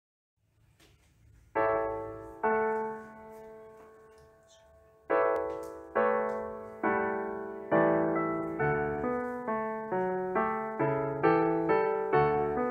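Solo piano intro with no singing: two chords about one and a half and two and a half seconds in, each left to ring and fade. About five seconds in, a series of struck notes begins, coming faster toward the end.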